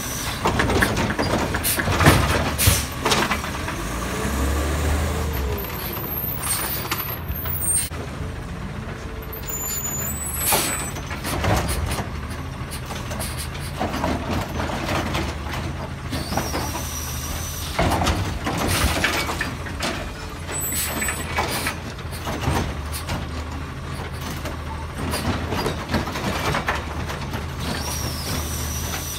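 Automated side-loader garbage truck collecting recycling carts: its diesel engine runs throughout, with repeated bangs and knocks as the hydraulic arm lifts, shakes and sets down carts. A few short high-pitched squeals come between pickups.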